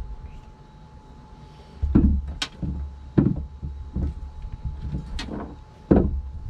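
Irregular knocks and sharp clicks, about six of them, with low rumbling between them, starting about two seconds in.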